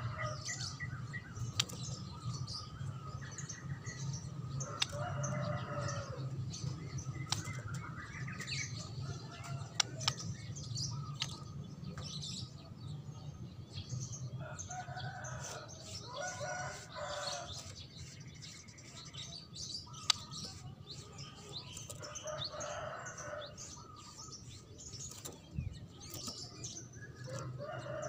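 Birds singing and chirping in repeated phrases every few seconds, with wing flutters and sharp clicks as a white-rumped shama moves about its cage. A steady low hum runs underneath.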